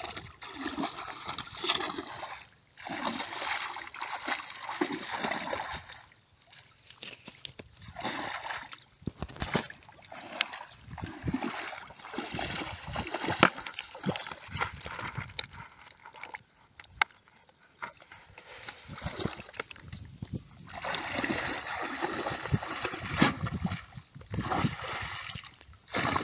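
Muddy canal water splashing and sloshing as it is stirred and scooped, in repeated bursts a second or a few seconds long with short gaps between.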